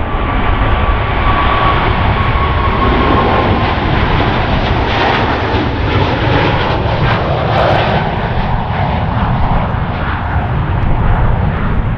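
A Boeing 777-300ER's twin GE90 turbofans at take-off thrust, a loud steady rumble as the jet rolls, lifts off and climbs away. A thin high whine from the engines sounds over the rumble in the first few seconds, then fades.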